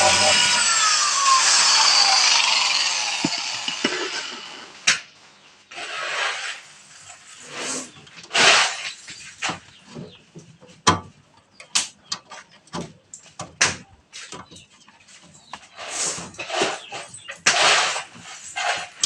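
A power tool's motor winding down, its pitch falling over the first few seconds. Then irregular sharp knocks, clicks and short scrapes follow through the rest.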